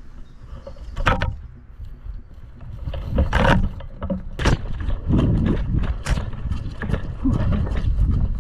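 Low rumbling movement and handling noise with four sharp knocks or cracks spread over several seconds.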